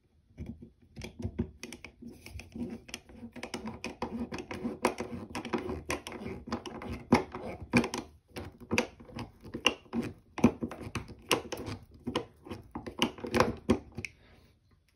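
Drywall screw being driven by hand into a wooden board with a Channellock 6-in-1 screwdriver: a dense run of small creaks and clicks as the screw turns in the wood and the handle is regripped, with a couple of brief pauses.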